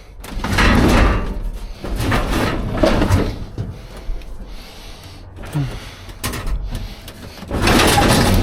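Rummaging through a dumpster: debris and scrap dragged and shifted, scraping and knocking in irregular bursts, loudest near the end.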